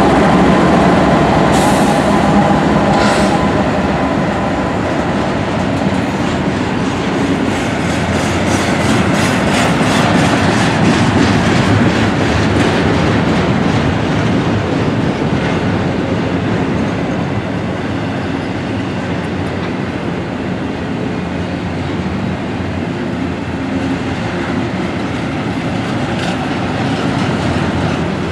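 Norfolk Southern diesel freight train rolling past at close range. The second locomotive's engine hum fades in the first seconds, then double-stack container well cars go by with a steady rumble of steel wheels and a repeated clickety-clack over the rail joints.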